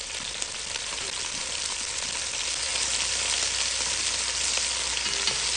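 Veal stew pieces sizzling in hot olive oil in a Dutch oven, searing to brown, as more pieces are laid in; the sizzle grows a little louder over the few seconds. It is the steady sizzle of oil hot enough to brown the meat rather than steam it.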